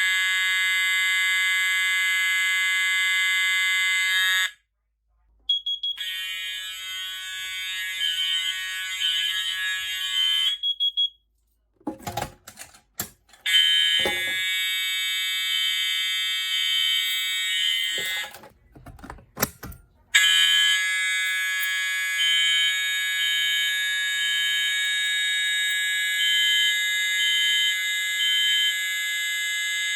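Fire alarm horns sound a loud, steady tone that cuts off and starts up again several times, as they do during a walk test of the fire alarm system. Short noisy clatters fill two of the gaps.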